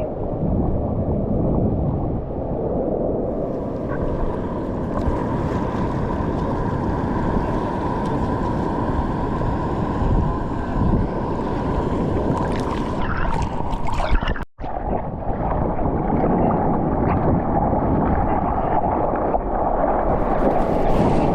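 Muffled, steady rush of surf and moving water with wind buffeting a GoPro's microphone while bodyboarding in the waves; the sound cuts out for an instant about two thirds of the way through.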